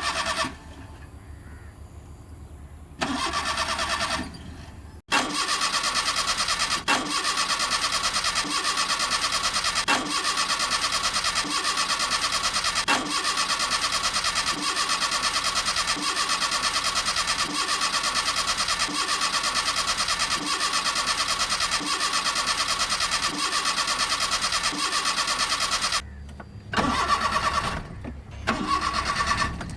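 Suzuki Mehran's engine cranking on the starter motor without catching: two short cranks, then one long unbroken crank of about twenty seconds with a steady whine and a regular beat of the compression strokes. It cuts off suddenly, and two more short cranks follow near the end.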